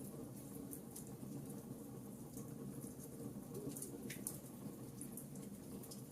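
Fireplace fire crackling: scattered small sharp crackles and pops over a soft, steady low rush of flame.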